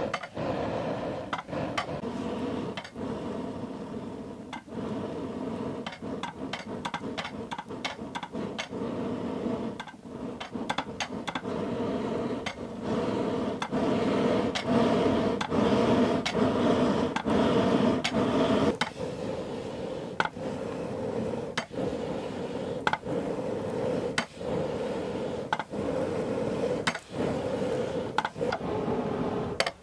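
Wooden Chinese box bellows being pumped by hand: its wooden flap valves clack sharply and repeatedly as the piston changes direction, over a steady rush of air that swells and eases with the strokes.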